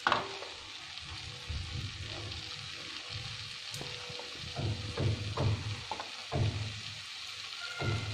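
Rice and egg mixture sizzling in a pan over the flame with a steady hiss, with a few soft irregular knocks and scrapes, most of them in the second half.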